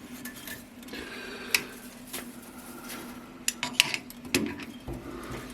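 Light metallic clicks and clinks of metal tools or parts being handled, a handful of separate ticks over a faint steady hum.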